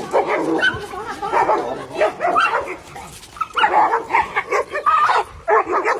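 Dogs barking and yipping in quick, repeated bursts as they play-fight, with a short lull about halfway through.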